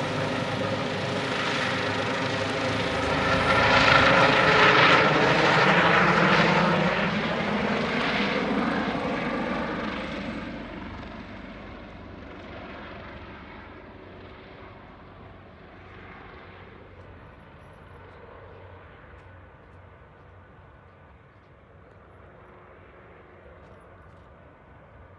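Airbus H145 helicopter's rotor and twin turboshaft engines as it departs. The noise is loudest a few seconds in as it passes overhead, drops in pitch, then fades steadily as it flies off into the distance.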